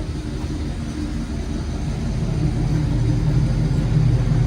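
A car engine running with a low, steady rumble that grows louder about two seconds in.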